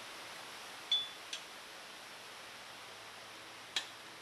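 A few sharp clicks over a steady hiss from handling the metal wheeled log frame and its bungee cords: a short ringing clink about a second in, another click just after, and a third near the end.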